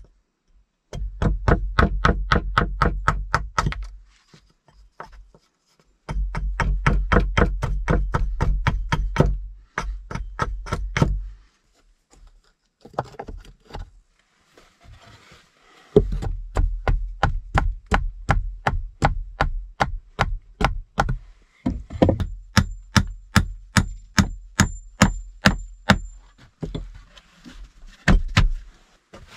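Rapid, evenly spaced knocking, about seven strikes a second, each with a dull thud, in runs of several seconds broken by short pauses.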